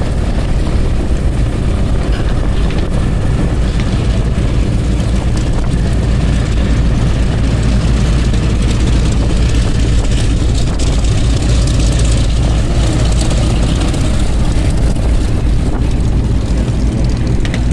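Piston-engined propeller warbird flying past, a steady engine drone that grows a little stronger around the middle.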